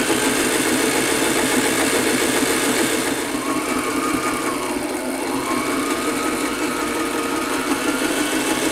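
Sailrite LS-1 walking foot sewing machine running steadily, stitching cording into heavy corduroy. Its motor whine eases briefly about five seconds in, then picks up again.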